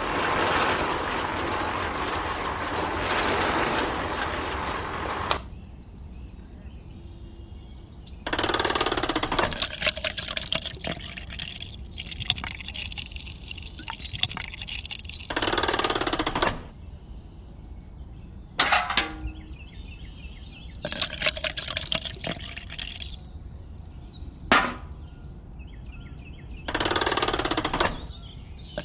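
The small electric motor of a miniature toy concrete mixer runs steadily, its drum churning a grey liquid mix, and stops about five seconds in. Then come several short bursts of the liquid pouring from the tipped drum into a small plastic bucket, with a couple of sharp clicks between them.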